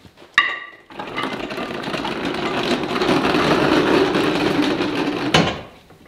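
A steel weight-bracket shank scraping as it slides out of a tractor's 2-inch hitch receiver. A ringing metal clank about half a second in, then a steady grinding scrape for about four seconds, ending in a loud clunk near the end.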